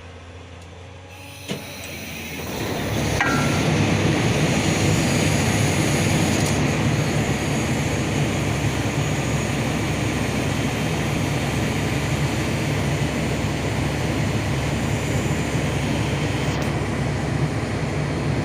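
Truck-mounted hydraulic concrete pump and its Isuzu truck's engine running. A low idle hum gives way, about two seconds in, to a loud, steady mechanical din with a deep rumble under a broad hiss, as the pump is brought up to working speed.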